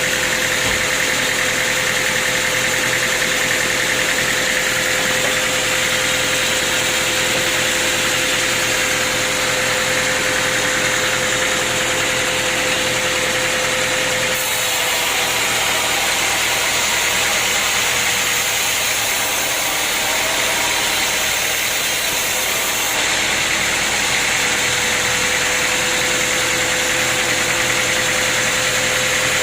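Sawmill machinery running steadily, a continuous mechanical hiss with a steady whine; about halfway through, the whine drops out and the sound turns brighter and hissier for several seconds before settling back.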